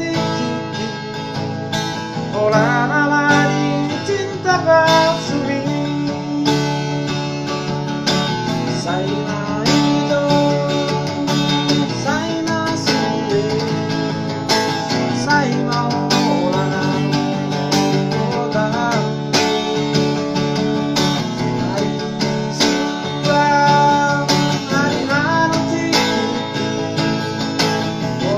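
A man singing a Batak song, accompanying himself on a strummed acoustic guitar.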